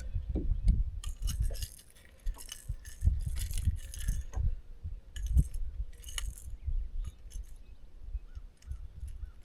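A bass flopping and thudding on a boat deck while being unhooked, with irregular bursts of metallic clinking and rattling.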